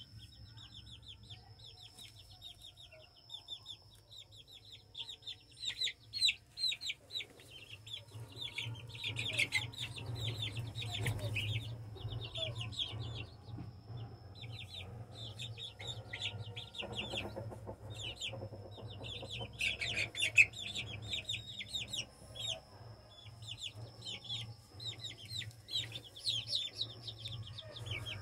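A group of chicks peeping in rapid, short, falling chirps, busiest around ten and twenty seconds in, over a steady low hum.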